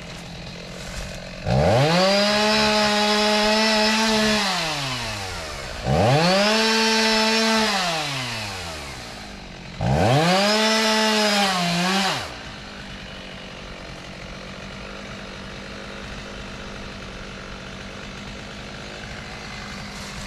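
Two-stroke chainsaw idling, then revved up hard three times, each rev held for a couple of seconds before dropping back, and settling to a steady idle about halfway through.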